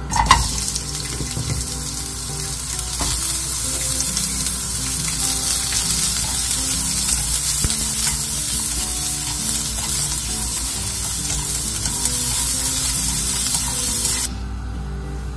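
Julienned carrots sizzling in hot oil in a nonstick wok as they are stir-fried with chopsticks. A sharp burst as they hit the oil, then a steady sizzle that cuts off abruptly near the end.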